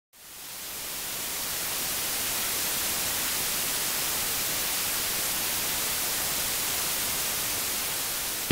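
Steady, even hiss of white noise, fading in over about the first second and holding level, with no board impacts or other distinct sounds in it.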